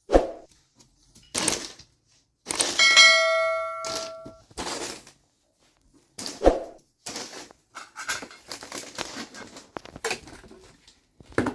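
A metal object struck once, clanging and ringing for about a second, among scattered knocks and handling sounds.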